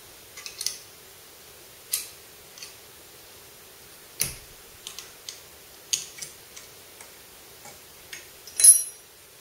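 Irregular sharp clicks and taps as a folding knife is handled in, and then lifted out of, the clamp of a Wicked Edge sharpener, with the loudest cluster of clicks near the end.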